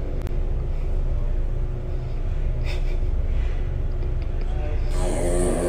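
A steady low rumble, then about five seconds in a short, wavering, pitched rasp: a dog farting.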